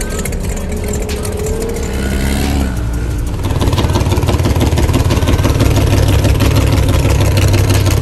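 Racing powerboat engines running at speed as the boats pass close by; a little under three seconds in the sound switches abruptly to a second, louder and steadier engine.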